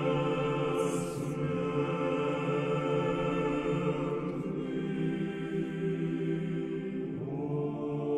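Choir singing Russian Orthodox chant in long held chords, moving to a new chord about seven seconds in.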